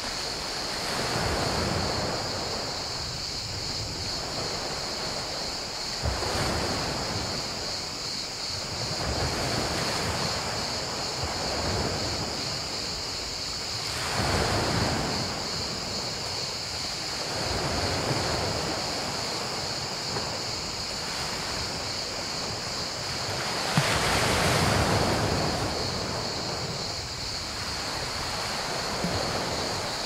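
Small Mediterranean waves breaking and washing over a pebble beach, swelling and fading every few seconds, with a steady high-pitched cricket chorus underneath.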